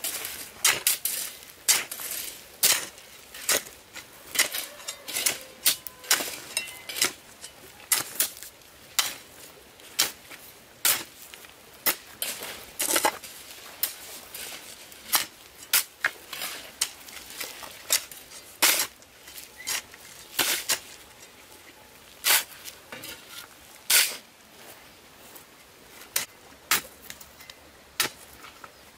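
A series of sharp clicks and light knocks of hard objects, irregular, about one to two a second.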